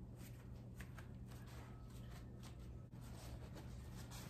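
Paper towels rustling faintly as they are pressed onto shredded zucchini and peeled off again, blotting out its moisture, over a low steady hum.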